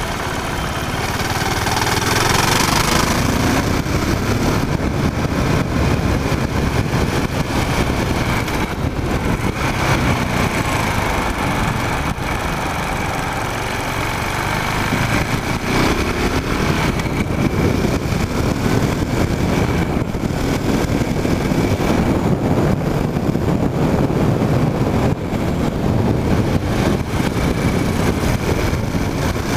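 KTM Duke motorcycle engine under way, its revs rising and falling as it is ridden through a run of bends, heard from a microphone on the tank together with wind and road noise.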